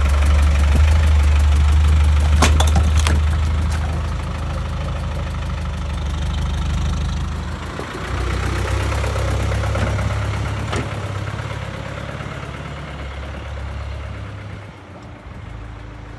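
Land Rover Discovery 1's 300Tdi four-cylinder turbodiesel idling close by, with two sharp knocks about two and a half seconds in. About eight seconds in the sound changes as the vehicle drives off, and the engine fades steadily as it pulls away.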